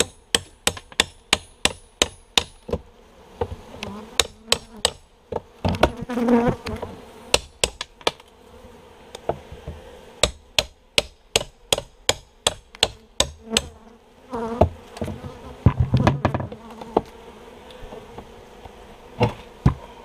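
Quick runs of sharp metal-on-wood knocks, about two or three a second, as a steel pry bar is worked into the wooden board under a bay window, with heavier creaks and cracks of the board working loose twice along the way. A honeybee colony buzzes steadily underneath.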